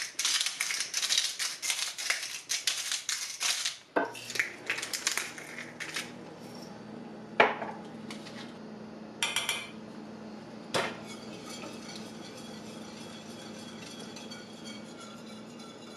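Salt and pepper grinders being cranked, a rapid gritty grinding for about four seconds. After that a few sharp clinks of a utensil on a pot ring out over a steady low hum.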